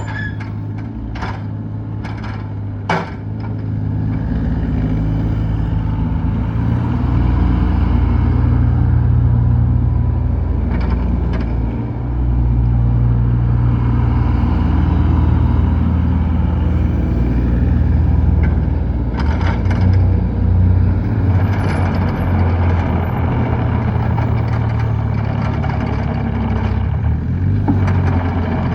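John Deere 26G mini excavator's diesel engine running steadily, with a few sharp clicks in the first three seconds; the engine grows louder about four to seven seconds in and stays there.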